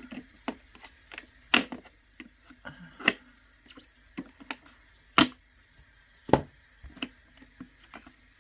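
Irregular sharp clicks and snaps of hard plastic toy packaging being twisted and pried loose by hand, four of them louder than the rest.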